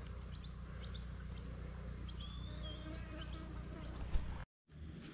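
Steady high-pitched drone of insects, with a few faint short bird-like chirps. It breaks off about four and a half seconds in, and a second insect drone follows at a slightly lower pitch.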